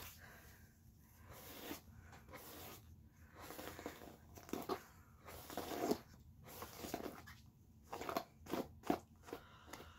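Hairbrush pulled roughly through long, wet, tangled hair in a series of short strokes, about one a second, some louder than others.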